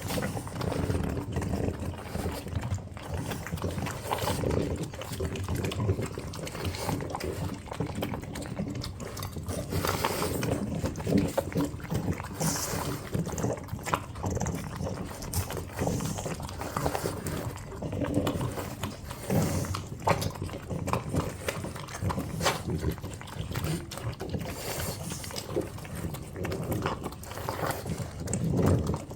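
French bulldogs eating, with wet chewing and licking sounds and noisy breathing close to the microphone.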